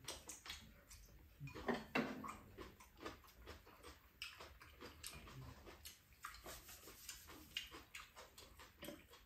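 Close-up eating sounds of bean sprout chicken stew: soft chewing and mouth noises with light, irregular clicks of spoons and chopsticks against bowls.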